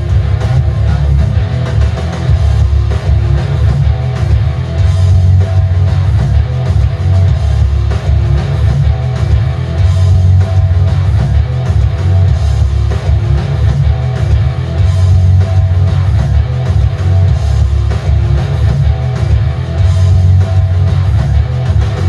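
Music with guitar and a strong, pulsing bass line, played loud through an Eggel Elite XL 2 speaker during a bass test.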